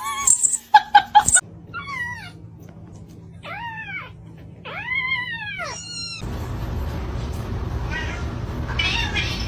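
A domestic cat meowing about four times, each meow rising and then falling in pitch. About six seconds in, a steady rushing noise takes over.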